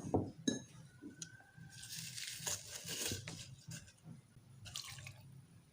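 Chopped herb leaves rustling and crinkling as they are put into a container, with a few light knocks. The main rustle comes about two to three seconds in, and a shorter one near the end.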